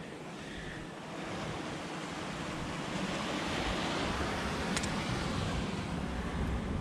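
Steady rush of surf breaking on the rocks below, mixed with wind on the microphone, growing slightly louder after about a second. A single short click comes about two-thirds of the way through.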